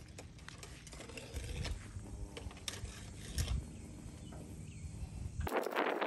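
Faint scattered taps and scrapes of a pole-mounted brush working in a dryer exhaust vent hood as the last of a bird's nest is cleared, over a low steady rumble. Near the end the rumble drops away and a louder rush of noise cuts in.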